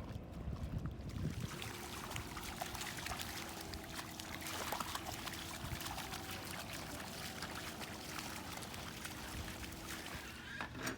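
Lake water trickling and lapping, a steady wash with many small ticks.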